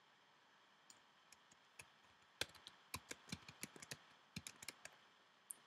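Typing on a computer keyboard: a few separate key clicks, then a quick run of keystrokes from about two and a half seconds in.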